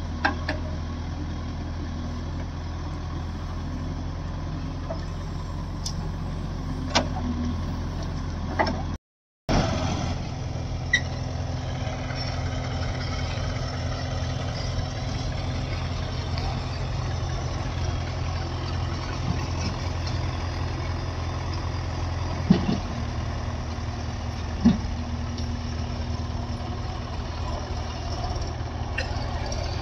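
Diesel engines of a backhoe loader and tractors running steadily, with a few sharp knocks. The sound cuts out for a split second about nine seconds in.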